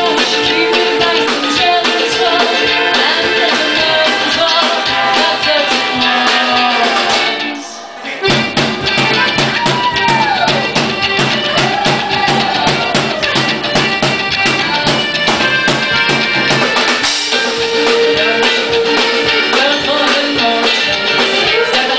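Live band music with female singers, ukulele and drum kit. The music dips for a moment about seven and a half seconds in, then comes back with busier drumming under gliding sung notes, and held vocal lines return near the end.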